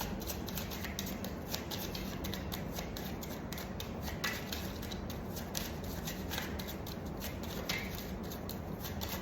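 A deck of oracle cards being shuffled by hand: a continuous run of small, irregular card clicks and snaps over a steady low hum.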